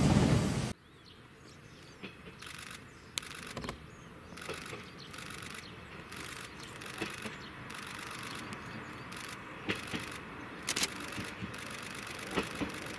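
A Meitetsu 2200 series electric train running past, cut off abruptly under a second in. Then quiet trackside background with scattered light ticks and a faint rumble that slowly grows louder.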